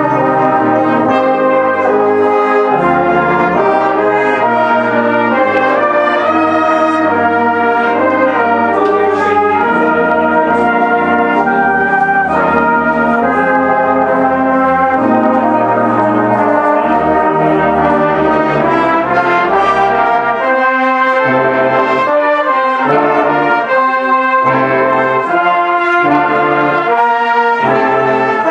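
A British-style brass band playing in full harmony, with cornets carrying the tune over tubas. In the later part the bass notes turn short and separated.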